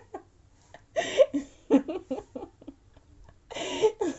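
A woman laughing in breathy bursts, once about a second in and again near the end.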